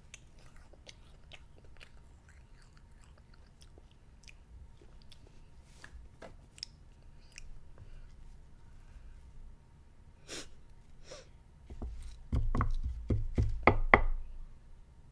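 A child chewing a marshmallow Peep, with soft, faint mouth clicks. Near the end comes a quick run of louder knocks and thumps.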